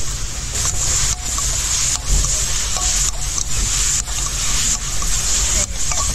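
Minced pork for pad kra pao sizzling loudly in a hot pan as it is stir-fried, the hiss surging and easing about once a second with the stirring.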